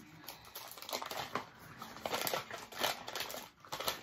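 Wrapping being unwrapped by hand: irregular crinkling and crackling as a small advent calendar piece is opened.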